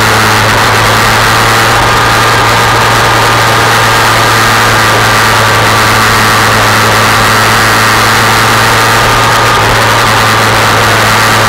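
2003 Yamaha R1 inline-four engine running at a steady pitch at track speed, under loud, constant wind rush on a bike-mounted camera.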